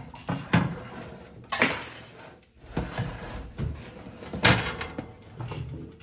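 Irregular knocks and clatters of things being handled in a kitchen: a string of light impacts, with two louder ones about one and a half and four and a half seconds in.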